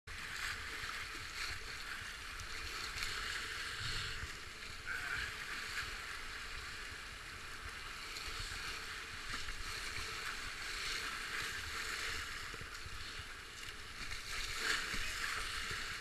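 River whitewater rushing steadily around a kayak running a rapid, with scattered splashes of waves and paddle strokes against the hull.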